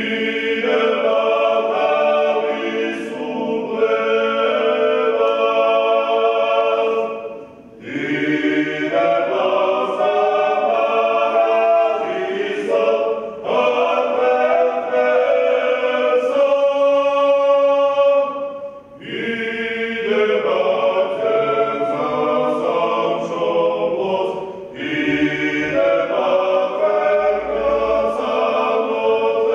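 Group of voices singing a Georgian folk song together, a cappella, in phrases of five to seven seconds with a brief pause for breath between each.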